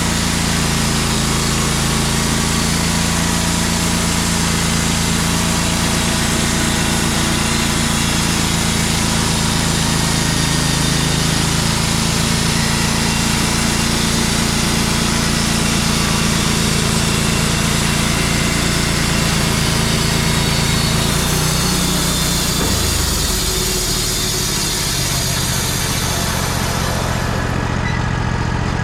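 Wood-Mizer LT35 portable band sawmill running steadily with a dense hiss over its engine note; about three-quarters of the way in the engine note drops and changes, and near the end the hiss fades.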